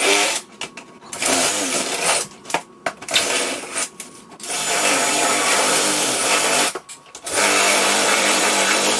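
DeWalt 20-volt cordless drill running on screws in bursts, taking down a microwave mounting plate: three short spurts, then two longer runs of about two seconds each with a brief stop between them.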